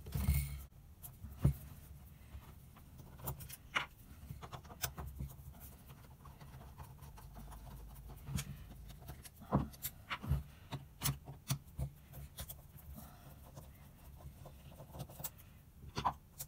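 Screwdriver backing out the small screws of a Mikuni carburettor's top cap by hand, with scattered light clicks and taps as the carb body is handled and the screws are set down on a wooden bench.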